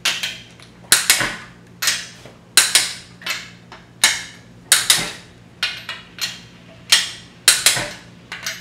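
Click-type torque wrench clicking again and again as the VW Type 1 crankcase nuts are re-checked at torque: a sharp metallic click with a brief ring about once a second, some coming in quick pairs.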